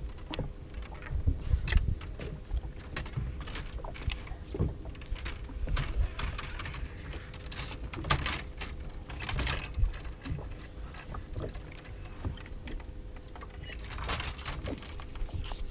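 Scattered light clicks and knocks of fishing tackle being handled on a bass boat, with wind rumbling on the microphone and a faint steady hum underneath.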